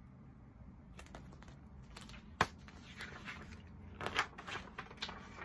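Picture book being handled and its pages turned: paper rustling and crinkling, with a few clicks and one sharp louder click about two and a half seconds in.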